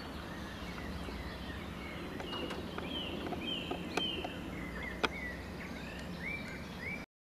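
Outdoor ambience with small birds chirping and singing throughout, and two sharp clicks about four and five seconds in, the second louder, from the metal frame of a coffin lowering device being handled.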